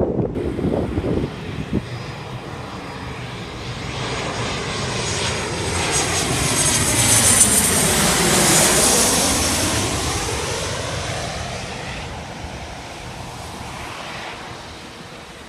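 Jet airliner flying low past on its landing approach: the engine noise builds to a peak about halfway through, with a high whine at its loudest, then fades away.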